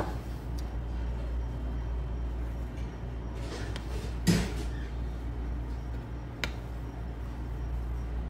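A metal spoon spreading and patting a buttered biscuit-crumb topping in a small metal cake pan: a soft scrape, then a knock against the pan about halfway through and a lighter tap a couple of seconds later, over a steady low hum.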